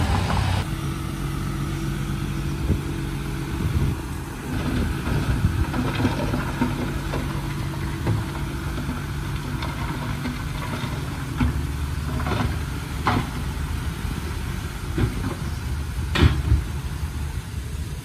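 Komatsu D31P bulldozer's diesel engine running steadily, with a few sharp metallic knocks, one near the end the loudest.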